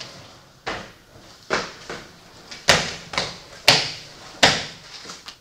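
A series of about seven sharp knocks at uneven intervals, the later ones loudest, each ringing briefly off the hard walls of a room.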